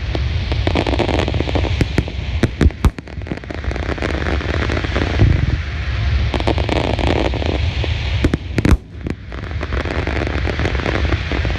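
Wide star mine fireworks barrage: shells launching and bursting in rapid, continuous succession, a steady rumble of booms with dense crackling. Clusters of sharp bangs come about two and a half seconds in and again near nine seconds.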